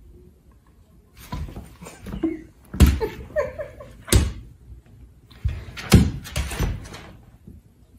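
Kitten and large shepherd-type dog play-fighting on a wooden floor: scuffling with several loud, sharp thuds.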